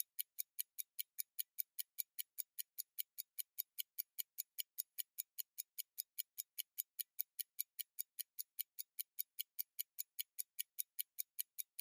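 Zenith Calibre 19 N.V.S.I. pocket watch movement ticking: its Swiss lever escapement gives an even run of crisp, high ticks, about five a second, its 18,000 beats-per-hour rate.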